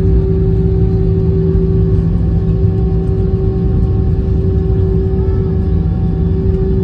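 Airliner cabin noise during the landing rollout: a steady, loud low rumble from the engines and the wheels on the runway, with a steady hum over it as the jet slows down.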